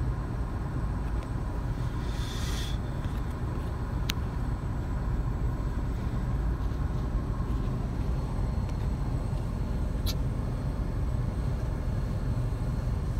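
Steady low rumble of idling vehicles, heard from inside a stopped car. A brief hiss comes about two seconds in, and there are two faint clicks later on.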